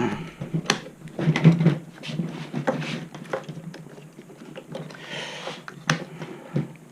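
Irregular clicks, knocks and rattles of hard parts handled by hand: the carry handle of a Onewheel Pint electric board being twisted and worked loose from its housing.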